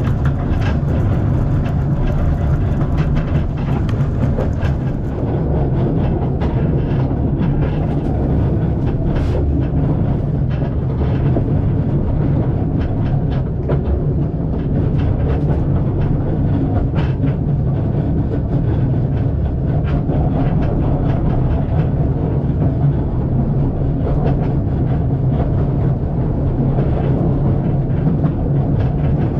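Narrow-gauge steam train running along the line, heard from aboard a carriage: a steady low rumble of wheels and carriage with scattered clicks and rattles.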